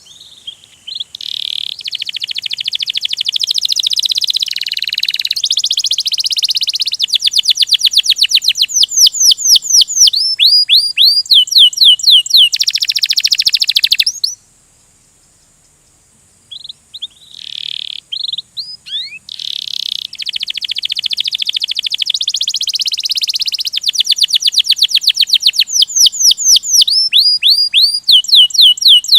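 Domestic canary singing a long rolling song of fast trills and rapidly repeated downward-swept notes. It breaks off for about two seconds halfway through, then starts again.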